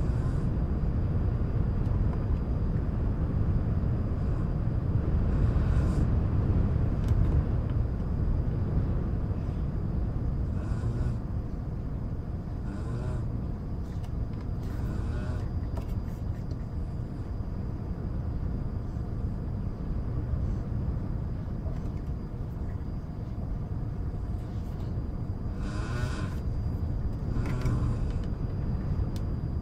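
Steady low rumble of background wind and white noise. Over it come a few short clicks and taps of cardboard jigsaw puzzle pieces being handled and sorted, the two loudest near the end.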